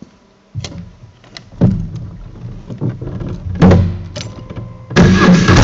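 Motorcycle engine running at low revs with several sharp knocks and clunks, then much louder from about five seconds in, in an underground parking garage.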